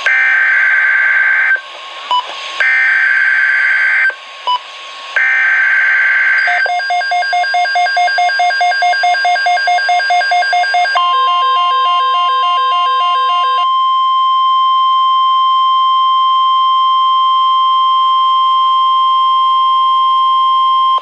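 NOAA Weather Radio emergency alert signalling that heralds a new message. First come three short screeching bursts of SAME digital header data. Then a rapid pulsing beep at about four a second, and from about eleven seconds in the steady 1050 Hz warning alarm tone, held for about ten seconds.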